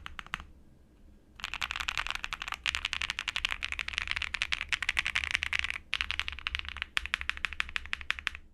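Fast typing on a QK65 mechanical keyboard with lubed Akko CS Silver linear switches, an FR4 plate and DMK keycaps: a rapid stream of keystroke clacks in runs, broken by a pause of about a second near the start and two short breaks near the end.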